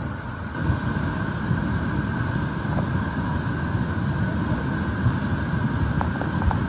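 Flooded river rushing by, a loud steady deep rumble with a faint steady whine running through it.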